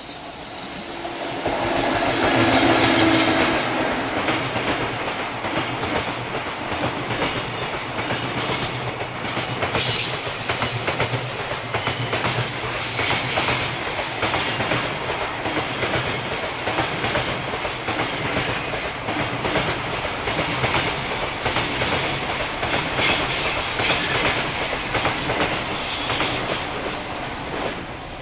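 JR Freight train passing close by: it swells in loudest about two seconds in as the locomotive goes past, then a long string of freight wagons runs by with a steady clickety-clack over the rail joints.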